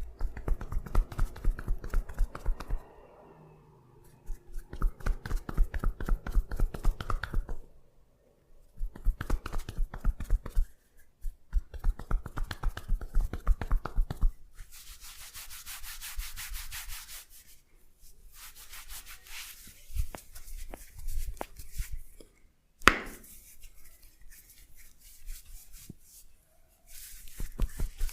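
Massage sounds: runs of quick rhythmic tapping strikes, about four or five a second, each with a dull thud, then a stretch of brisk rubbing hiss and scattered light clicks. Late on there is one sharp, loud snap.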